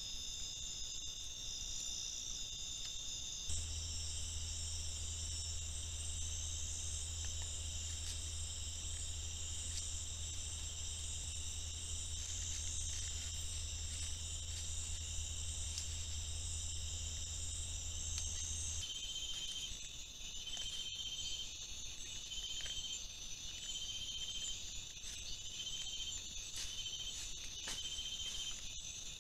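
Night insect chorus of crickets and other insects: steady high-pitched trilling that changes abruptly twice, with a low hum under the middle part. In the last third a short chirp repeats about once every second and a quarter.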